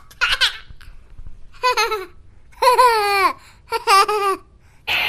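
A young boy's high voice calling out in four short sing-song bursts, the longest one sliding down in pitch; music starts right at the end.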